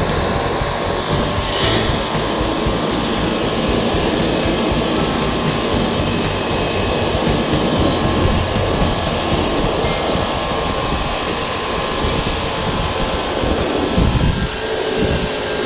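Pressure washer running, its high-pressure water jet spraying steadily onto concrete, with a brief dip in the noise near the end.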